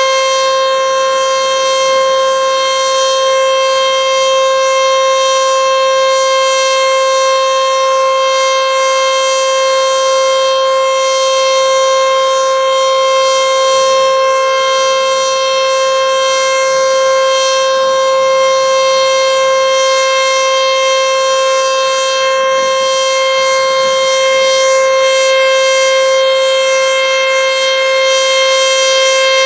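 ACA Screamer S-5 outdoor warning siren sounding a loud, steady tone at full speed, holding one pitch.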